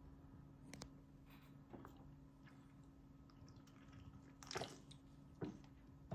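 Near silence: room tone with a low steady hum and a few faint, short clicks and soft rustling noises.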